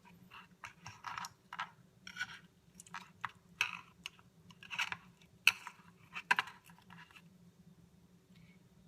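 A butter knife clicking and scraping against dishware, a quick irregular run of short clicks and scrapes that stops about seven seconds in.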